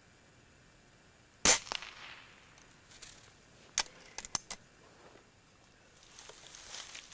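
A single shot from a Remington Vantage 1200 .177 break-barrel air rifle, a sharp crack about a second and a half in. A few quieter sharp clicks follow a couple of seconds later, then faint rustling.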